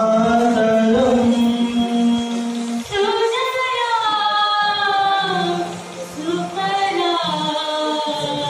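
A small group of voices singing together, long held notes in phrases of a few seconds with short breaks between them.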